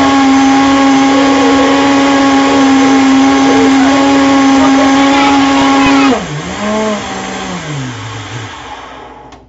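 Countertop blender running at a steady high speed, blending a fruit smoothie. About six seconds in it is switched off, and its motor whine falls in pitch and fades as the blades spin down.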